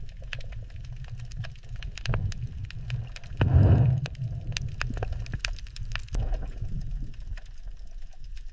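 Irregular sharp knocks and clanks over a steady low rumble, with a louder noisy surge about three and a half seconds in.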